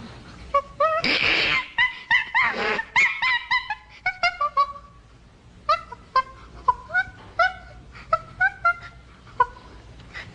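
Common chimpanzee calling: a string of short, high calls that each rise and fall in pitch, with two harsh screams in the first three seconds, then single calls spaced out every half second or so.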